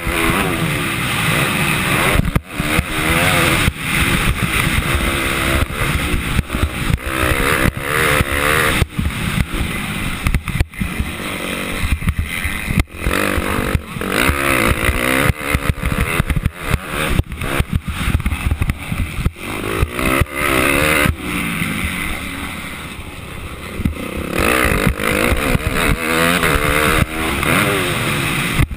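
250 cc motocross bike engine, heard from the rider's helmet, revving up and down over and over as the rider works the throttle around the track, with frequent sharp knocks and brief dropouts.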